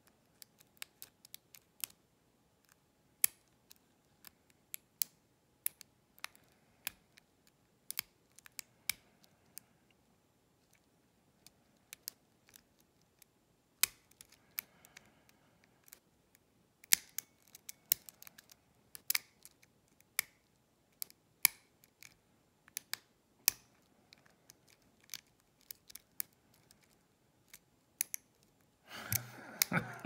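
Lock pick and tension wrench working the pins of a challenge lock: irregular sharp metallic clicks, some loud, often one to three a second with a quieter spell in the middle.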